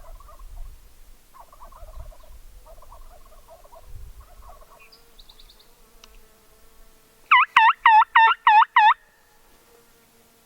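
A quick series of six loud hen-turkey yelps, each note swooping down and back up, lasting about a second and a half in the second half. Before them, fainter scratchy sounds come and go.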